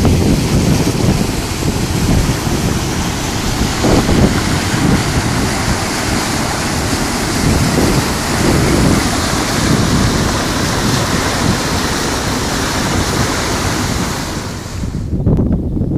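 Wind buffeting the microphone, with a gusty low rumble, over the steady rush of river water running over rocks and a weir. Near the end the rushing cuts off suddenly, leaving the wind rumble.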